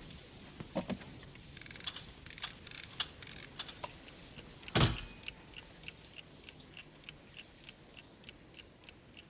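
Cartoon sound effects: scattered clicks and a rattling clatter, then one loud metallic clank about five seconds in that rings briefly, followed by steady light ticking about three times a second.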